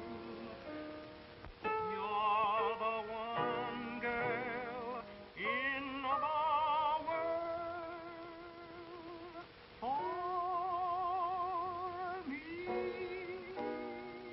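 A man singing a slow love song in a crooning, semi-operatic style, holding long notes with wide vibrato and sliding up into several of them, over soft instrumental accompaniment. The sound is thin and muffled, with no treble, as on an old film soundtrack.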